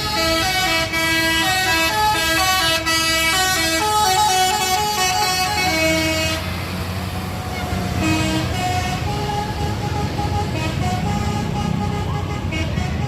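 Agra Mas Predator bus's multi-note telolet "basuri" horn playing a quick tune of stepped notes, loud for about six seconds and then softer notes for the rest, over the bus's engine rumble.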